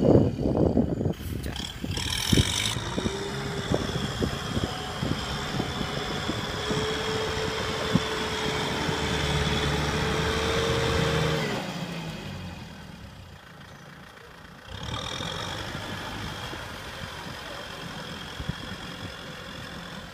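Kubota tractor's diesel engine working under heavy load while stuck wheel-deep in paddy mud, its pitch slowly rising for several seconds. Just past halfway it eases off sharply, then picks up again a few seconds later.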